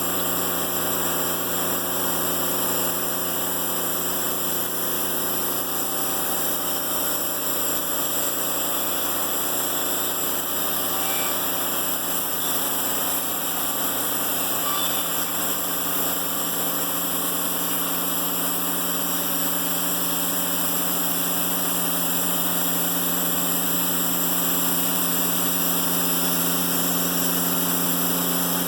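Timberking 1400 band sawmill running steadily, engine and band blade working through a black locust log, slightly louder near the end.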